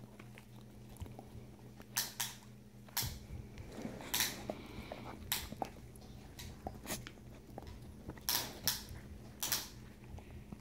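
A Dalmatian and a Chihuahua puppy play-biting and mouthing at each other: short, sharp scuffling and chomping noises come irregularly about once a second, over a faint steady low hum.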